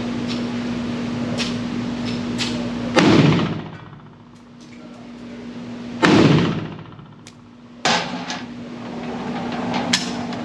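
Two shots from a Pioneer Arms Hellpup AK-pattern pistol in 7.62x39, about three seconds apart, each loud with a long echoing tail. A lighter, sharper knock follows about two seconds after the second shot.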